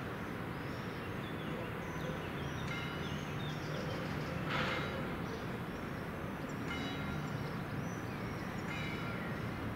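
Town ambience heard from high above: a steady, distant hum of traffic with short bird chirps over it, and a brief hiss about halfway through.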